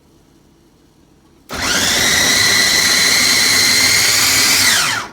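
Homeleader 300 W electric food chopper switched on at speed 1, chopping an apple in its glass bowl: the motor starts about a second and a half in and runs steadily with a high whine. Near the end it is switched off, and the whine falls in pitch as the motor winds down.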